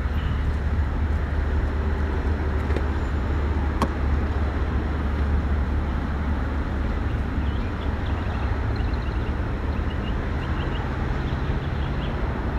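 Steady low outdoor rumble of traffic and wind, with a single sharp click about four seconds in as the BMW Z4's trunk lid unlatches.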